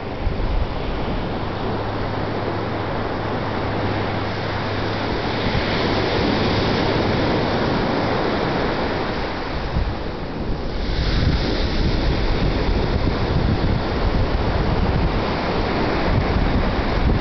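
Ocean surf breaking in a steady wash, swelling louder as waves come in, with wind buffeting the microphone.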